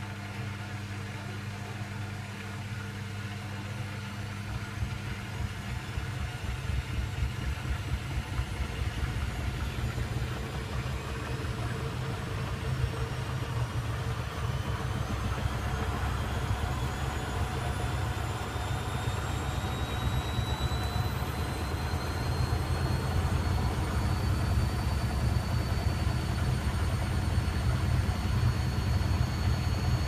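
Beko front-loading washing machine drum spinning up during a rinse-stage spin, its motor whine rising slowly in pitch and getting gradually louder as the drum gathers speed.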